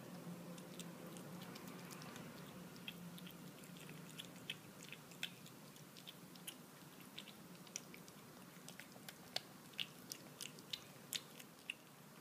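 Kitten eating wet cat food from a stainless steel dish: faint, irregular wet chewing clicks, sparse at first and coming thicker from about three seconds in.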